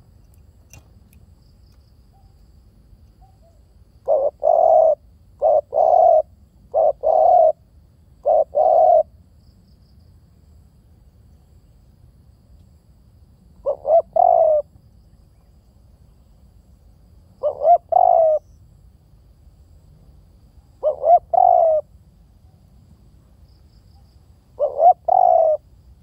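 Spotted dove cooing: short phrases of two or three low coos. Four phrases come in quick succession starting about four seconds in, then single phrases every three to four seconds.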